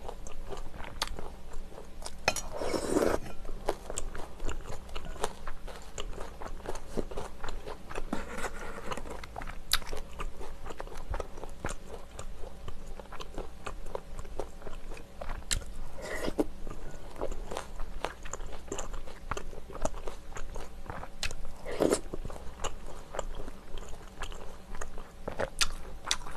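Close-miked eating of rice-cake and dumpling soup: wet chewing and biting with crunchy bites and small irregular clicks. One longer, louder rush of noise comes about three seconds in.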